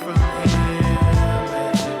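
Instrumental hip hop beat with no vocals: a repeating bass and drum pattern under sustained pitched notes.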